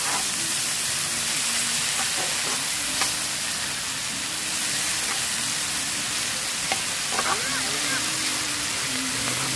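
Chicken pieces, garlic and onion sizzling steadily as they are stir-fried on a hot flat stone-coated griddle pan, with now and then a faint scrape of the spatula.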